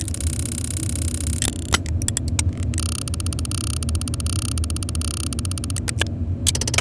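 A tiny metal gear mechanism clicking and ratcheting in fast, even ticks, broken by a few single clicks, then whirring through a longer run of rapid ticks before two last clicks near the end. A steady low hum runs underneath.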